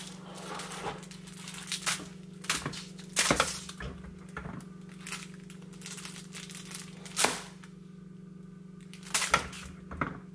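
Scattered sharp knocks and clicks of a plastic syrup bottle being handled, turned and set down on a granite countertop, over a steady low hum.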